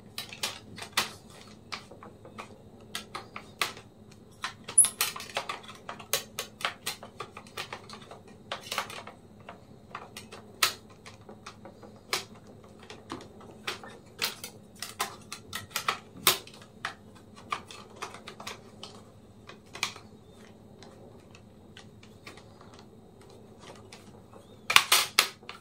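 Irregular light clicks and taps of plastic and metal laptop parts being handled and fitted back into place in an open HP ProBook, with a quick flurry of louder clicks near the end.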